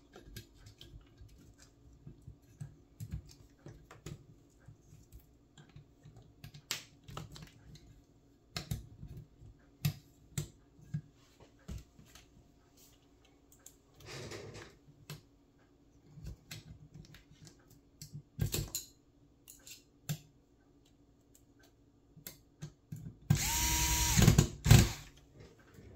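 Scattered light clicks and rustles of wires and plastic parts being handled. Near the end, a Metabo cordless electric screwdriver runs for about a second and a half with a steady whine, driving a screw into the fuser unit's metal frame.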